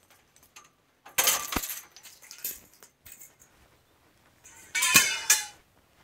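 Steel bandsaw-mill blade clinking and rattling as it is handled, in two bursts, about a second in and near the end, with a brief metallic ring in the second.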